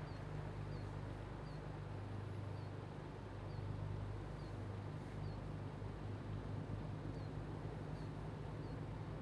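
Steady low engine drone, with a short, high chirp repeating roughly every two-thirds of a second over it.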